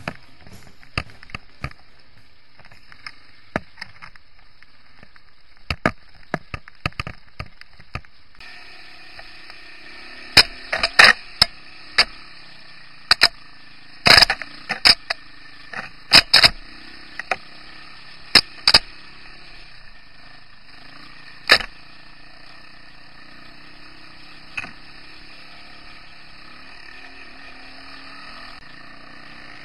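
Irregular sharp knocks and clacks of a vehicle and its mounted camera being jolted over a rough dirt trail, over a steady low hiss; the knocks come thickest between about ten and twenty seconds in.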